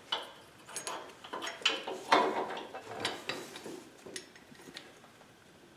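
Metal clinks, knocks and scrapes as a pin, washer and linkage part are worked loose and slid off a compact tractor's hitch: a run of short sounds, loudest about two seconds in.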